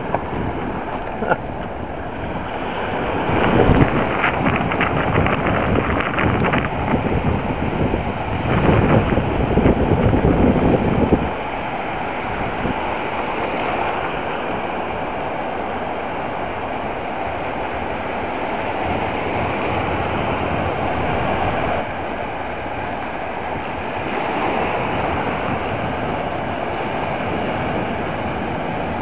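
Small surf breaking and washing in the shallows, with wind buffeting the microphone; the heavy low rumble of the wind is strongest in the first ten seconds or so and drops off abruptly about eleven seconds in, leaving a steady wash of waves.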